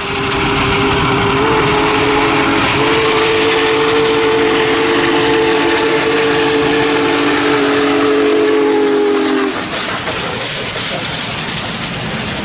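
Union Pacific steam locomotive's whistle blowing one long blast of several tones sounding together as a chord, stepping up slightly in pitch twice in the first few seconds and cutting off about nine and a half seconds in. Underneath and after it, the passing train gives a steady noisy rumble and hiss.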